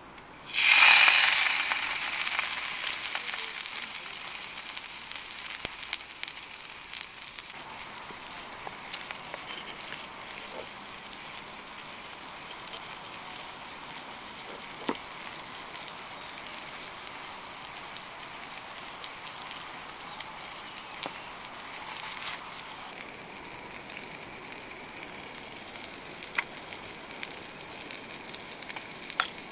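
Food going into a hot pan: a sudden loud sizzle just under a second in, easing into steady frying with light crackling.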